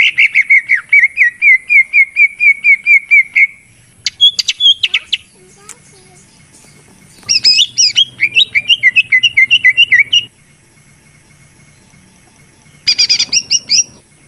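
Green leafbird (cucak ijo) song: phrases of fast repeated chirping notes, about four or five a second, broken by pauses of a second or more.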